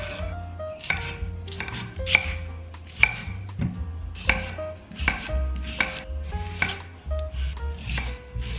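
Kitchen knife chopping tomatoes and cucumber on a wooden chopping board: the blade knocks on the wood at a slightly irregular rate of about two a second.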